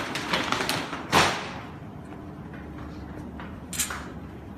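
Handling noises from a large laminated plastic dog food bag: quick crackles and clicks, a louder crackling thump about a second in and another sharp crackle near the end.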